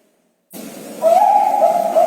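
Zebra dove (Thai-bred perkutut bangkok) cooing: after a short gap, a loud, steady coo begins about a second in and runs on in a rippling trill.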